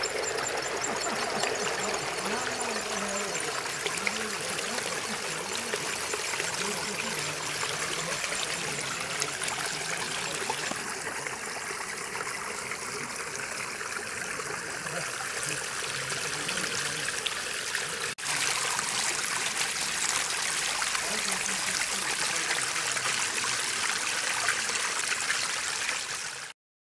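Water from a small garden fountain of stone basins, trickling and splashing in a steady rush. It drops out briefly about two-thirds of the way through and cuts off just before the end.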